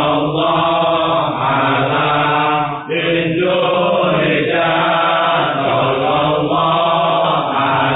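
Voices chanting a shalawat-style devotional refrain in unison, continuous and rhythmic, with a brief pause for breath about three seconds in.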